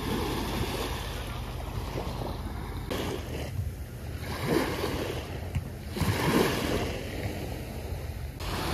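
Small waves lapping and washing up onto a sandy beach, with wind rumbling on the microphone.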